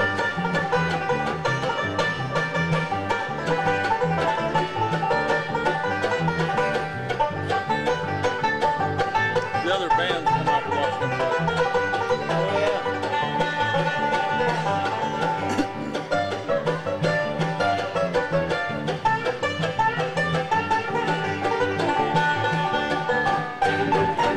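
Bluegrass band playing an instrumental at a steady driving tempo, a five-string banjo picking the lead over mandolin and guitar backing.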